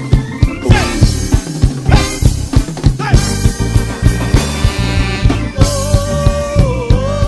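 Live ska band playing with a steady drum-kit beat, bass and guitar. A long held note enters about two-thirds of the way in and bends slightly near the end.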